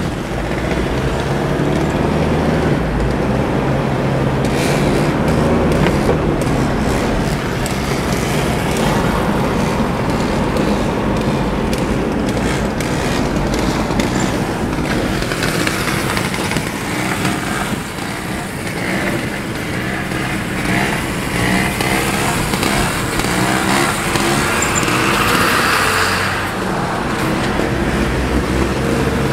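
Trials motorcycles' single-cylinder engines running alongside a moving car, heard from inside the car's cabin over the car's own engine and road noise.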